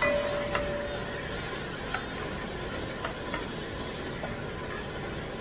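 A spatula stirring string beans through simmering broth in a pan, with a few light knocks against the pan and a short squeak at the start, over a steady hiss.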